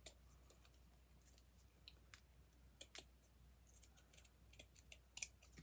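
Faint, scattered small clicks and snips of scissors trimming a small burlap flower bud, with a few more near the end.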